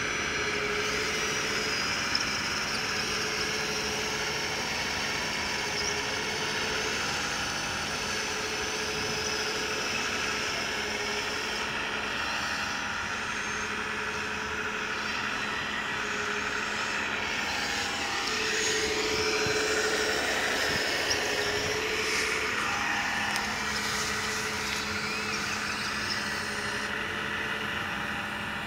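Electric motors and hydraulic pump of a 1:14.5 scale RC excavator and RC tracked loader whining as they work. A tone cuts in and out every second or two as the controls are moved, and about two-thirds of the way through the pitch sweeps down and back up.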